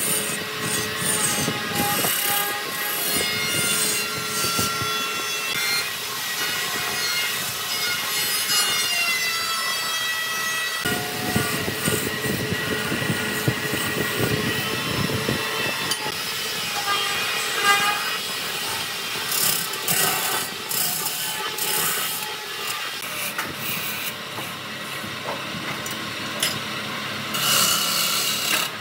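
A wood lathe spinning a wooden blank while a turning tool scrapes and cuts it, with steady high squealing tones and a pitch that rises briefly partway through.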